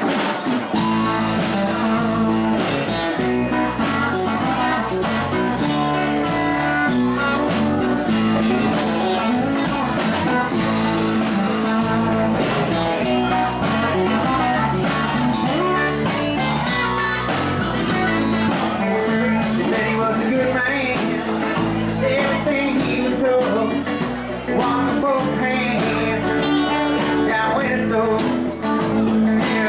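Live band playing a bluesy rock number on electric guitars, bass guitar and drum kit, starting right at the beginning after crowd chatter.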